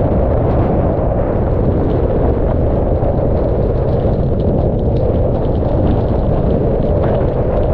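Hurricane-force wind blasting across the microphone of a car-mounted GoPro MAX camera: a loud, steady, low rumble of wind buffeting, with rain drops ticking on the camera.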